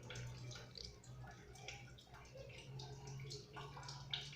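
Faint, irregular wet clicks and squelches of aloe vera gel being worked by hand to break it down in place of a blender.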